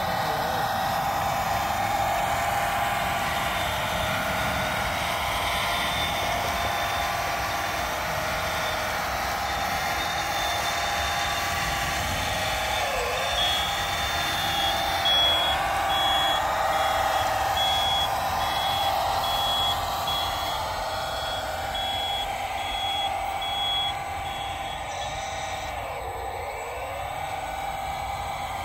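A 1/14-scale RC hydraulic wheel loader working. Its electric motors and hydraulic pump give a steady whine that dips in pitch a few times, and a reversing beeper sounds a regular high beep through the middle stretch.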